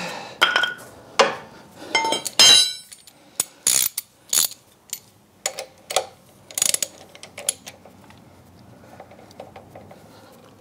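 Socket ratchet clicking in short spurts as the bolt through a Bobcat skid steer's engine mount is run down tight. There is a ringing metal clink about two and a half seconds in.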